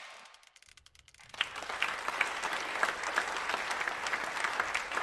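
Audience applauding, starting about a second and a half in after a brief hush, then holding steady.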